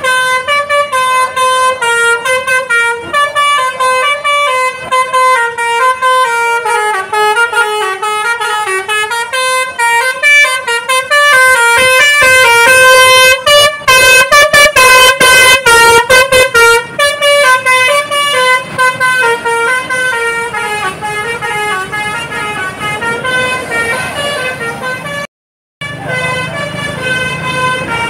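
Bus basuri telolet horn playing a quick, repeating melody of short stepping notes, loudest about halfway through. The sound cuts out briefly near the end.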